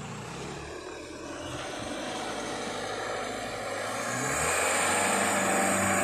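Palm-oil truck's engine labouring through deep mud, revving up about four seconds in and growing louder as it comes closer.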